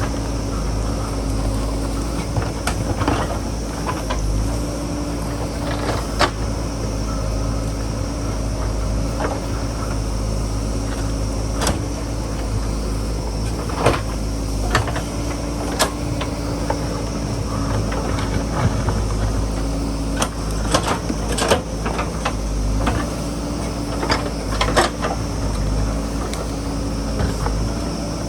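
JCB backhoe loader's diesel engine running steadily under work, with scattered sharp clanks and knocks, several in a quick cluster near the end.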